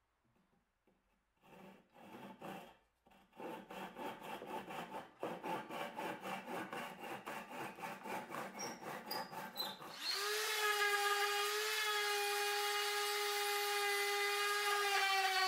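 A flush-cut hand saw cuts wooden dowel plugs off flush with the surface, in quick strokes at about three a second. About ten seconds in, a handheld electric sander starts and runs at a steady pitch, smoothing the trimmed plugs.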